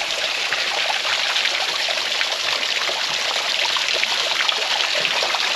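A small stream of water trickling steadily over and under rocks at the foot of a cliff.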